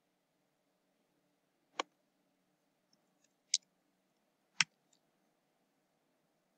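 Three sharp, separate clicks of a computer mouse, spread a second or so apart, with a few fainter ticks between them over a faint steady hum.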